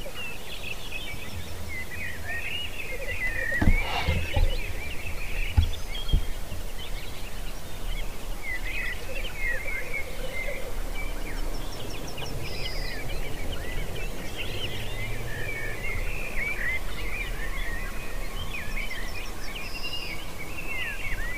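Many small birds chirping and trilling at once, a dense, continuous chorus. A few dull knocks come between about four and six seconds in.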